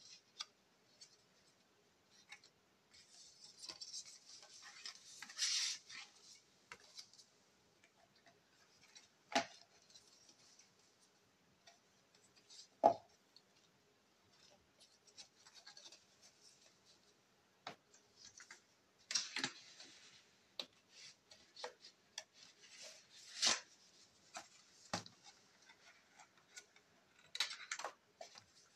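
Paper and card being handled: photographs and art prints shuffled, slid and rustled, with a few sharp taps, the loudest about halfway.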